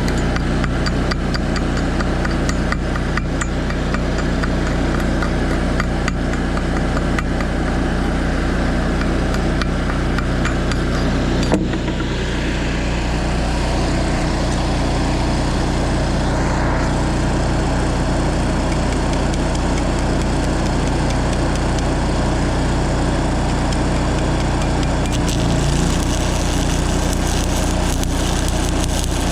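Engine of an engine-driven welding machine running steadily, with fine crackle over it and a single sharp knock about halfway through.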